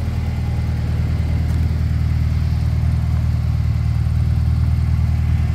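Honda Civic's swapped H2B four-cylinder (H23A block with B16 head) idling steadily, getting a little louder toward the end.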